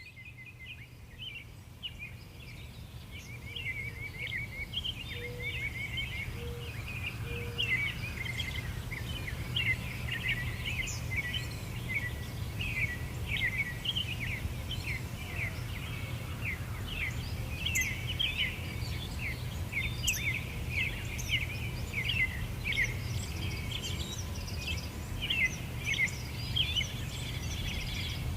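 A chorus of small birds chirping and twittering in rapid, overlapping calls, over a steady low rumble. It fades in over the first several seconds.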